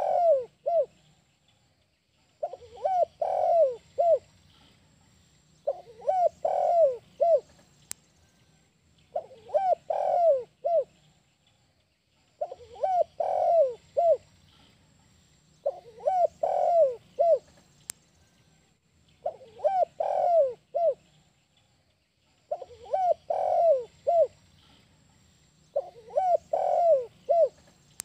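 Spotted dove (tekukur) cooing its 'kuk 1' song: a short phrase of several low coos ending on a single separate note, repeated about every three seconds.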